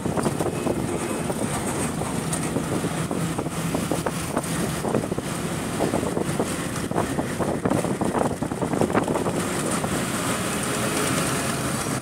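A road vehicle in motion, heard from on board: steady engine hum and road noise, with frequent short knocks and rattles.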